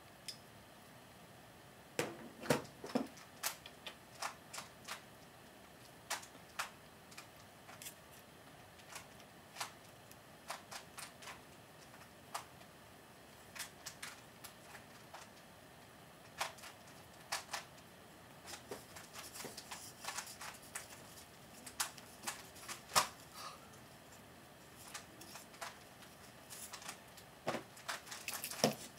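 Irregular light clicks and taps of fingers bending a thin wire sling hook and handling a small wooden-stick model trebuchet, with a quicker run of clicks near the end.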